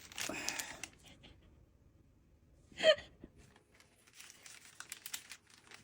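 Takeout food packaging rustling and crinkling as it is unwrapped, with a short gasp about three seconds in and a few light clicks of containers being handled.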